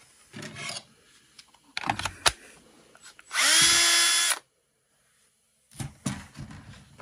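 Milwaukee M18 cordless drill with a spade bit spinning up and running for about a second, then stopping abruptly, powered by a dead 18V battery just restored by boosting it from another battery. Clicks and knocks of handling the battery and drill come before the run and again near the end.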